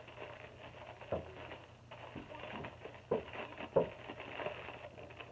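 Plastic packaging rustling and crinkling as it is handled, with a few sharp thumps about one, three and four seconds in.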